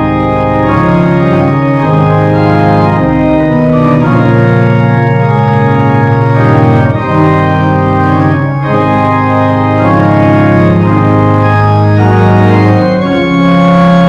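Organ music: slow, sustained chords with a strong held bass, changing every second or two.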